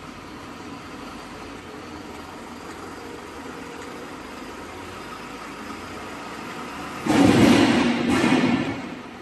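Machinery of a wood sawdust pellet production line running with a steady hum and faint steady tones. About seven seconds in, a loud rushing noise rises suddenly and lasts about two seconds.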